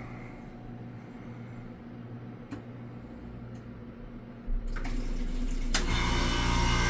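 Ice machine cycling through start-up: a low steady hum, then about four and a half seconds in a louder rush of water begins as the water inlet valve opens and fills the machine, with a sharp click a second later after which it gets louder still.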